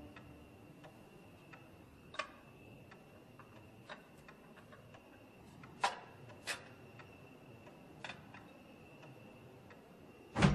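A clock ticking steadily, about one tick every half-second or so, with a few louder clicks in between and a sharp, loud knock near the end.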